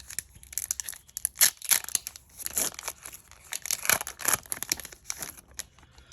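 Foil wrapper of a Pokémon booster pack crinkling and being torn open, a quick run of sharp crackles.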